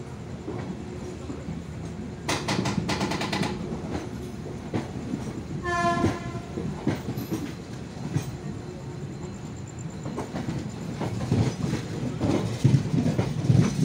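Indian Railways express passenger coach running on the approach to a station: a steady rumble with wheel clicks over rail joints. There is a burst of sharp clatter about two seconds in and a short train horn blast about six seconds in.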